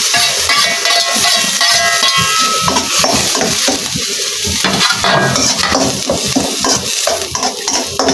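Chopped vegetables sizzling in hot oil in a steel wok while a slotted metal spatula stirs them, scraping and clinking against the pan over and over.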